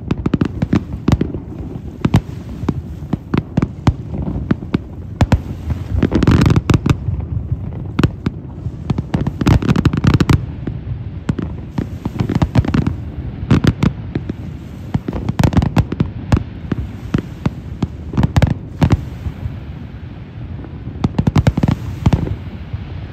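Aerial fireworks display: a rapid, continuous barrage of shell bursts and bangs, with heavier clusters of reports every few seconds.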